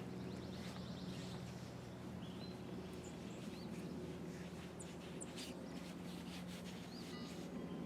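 Small birds chirping in scattered short, high notes over a steady low hum.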